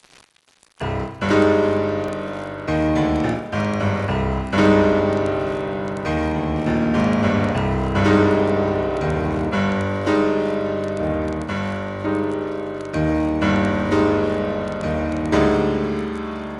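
Piano music begins about a second in: chords struck and left to ring and fade, a new one every second or so.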